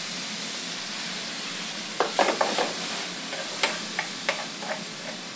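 Onions and mushrooms sizzling in oil in a frying pan, a steady hiss. From about two seconds in, a metal spoon stirring them clinks and scrapes against the pan, first in a quick cluster and then in single knocks.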